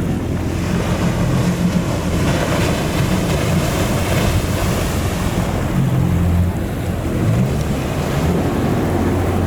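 Boat engine running steadily under waves and water washing, with wind on the microphone; the water noise swells for a few seconds mid-way.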